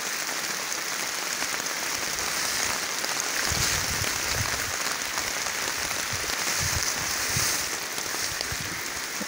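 Rain falling steadily as a dense, even patter, with a few low bumps around the middle.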